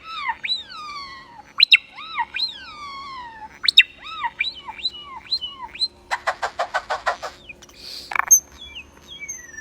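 A bird calling in a varied series: quick falling and arching whistles, then a rapid rattle of about eight clicks a second, a short harsh burst, and a long, slowly falling whistle near the end.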